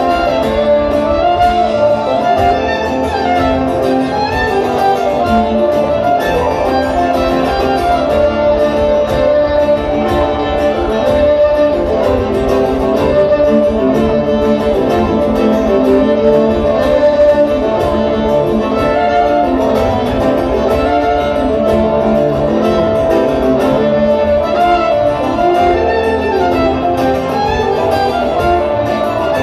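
A live acoustic string band playing steadily, the fiddles carrying the tune over acoustic guitar, banjo and upright bass.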